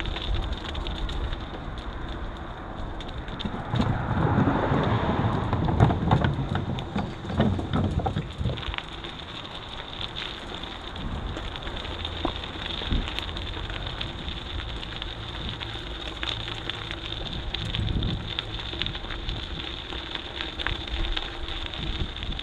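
Bicycle riding noise: tyres crackling over a rough surface, with many small rattles and clicks. A louder rush comes about four seconds in and lasts a few seconds; a faint steady high tone runs underneath.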